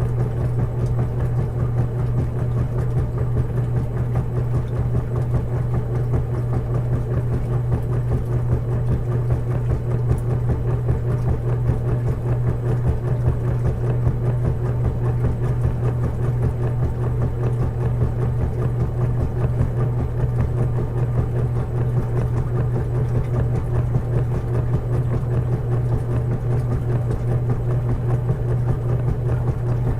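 Washing machine running with a steady, unchanging low hum.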